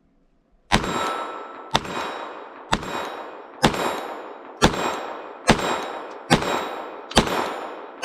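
Glock 44 .22 LR semi-automatic pistol firing CCI Mini-Mag rounds in slow, steady fire: eight shots about one a second, each followed by a long ringing decay.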